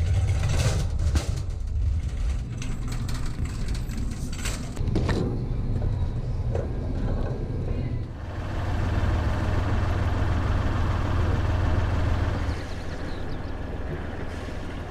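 Shopping cart pushed along, its wheels rumbling and its wire basket rattling with many small knocks; about halfway through the rattling gives way to a smoother, steady rolling rumble.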